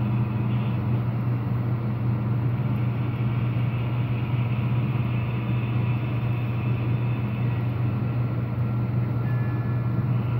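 Steady low hum with an even rushing noise from an HO-style model freight train rolling slowly along the track at yard speed.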